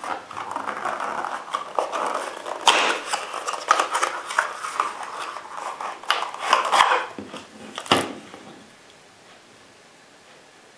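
Hands opening a cardboard cartridge box: cardboard flaps rustling and scraping, then the plastic cartridge tray being slid out, with a few sharp clicks and taps. The handling stops about eight seconds in.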